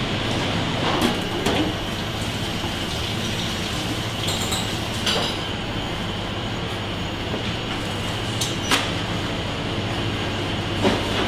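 Commercial kitchen background: a steady rush and hum of ventilation, with a few sharp clinks and knocks of metal utensils and pans now and then.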